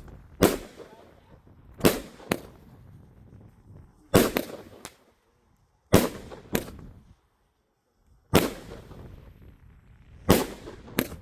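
A 200-gram consumer firework cake firing: about ten sharp bangs spaced a second or two apart, some coming in quick pairs, each with a short fading tail.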